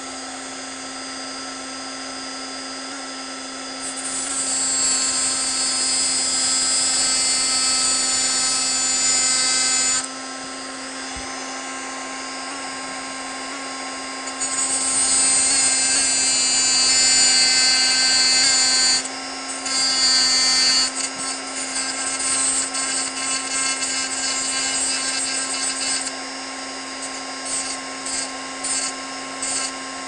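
A handheld rotary tool (a knockoff Dremel) running steadily with a cutoff wheel, grinding into a key to deepen the cut for its last pin. There are two long grinding passes, about four seconds in and again about fourteen seconds in, then a run of short touches of the wheel on the key.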